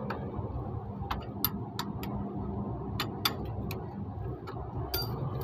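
Irregular sharp metallic clicks, about ten, as the rear drum brake's adjuster ratchet is turned with a long tool to back off over-tight brakes. A low steady hum runs underneath.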